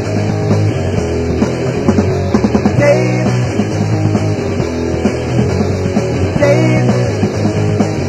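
Rock band playing an instrumental passage on guitars, bass and drums, with a riff that repeats about every three and a half seconds.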